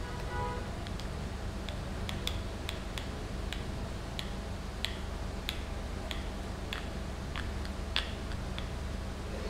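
Light sharp clicks, about one or two a second and loosely regular, over a steady low hum.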